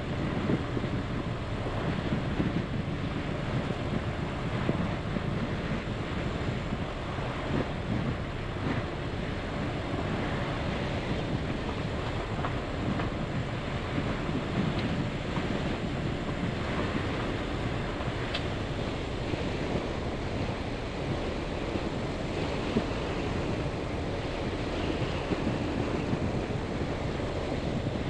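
A vehicle driving on a dirt road in strong wind: a steady noise of tyres, road and wind, with a few small knocks here and there.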